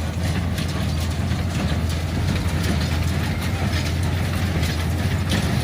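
An International 460 Utility tractor's engine runs steadily, pulling a New Holland 69 square baler that is working hay, with repeated mechanical clatter from the baler over the engine drone.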